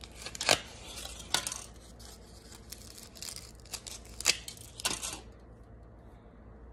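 Aluminium foil crinkling in sharp crackly bursts as it is peeled off a plastic water bottle, stopping about five seconds in.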